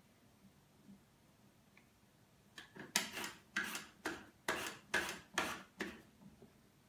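A radish pushed back and forth across the blade of a small handheld mandoline slicer, a quick run of short slicing strokes about three a second, starting about two and a half seconds in.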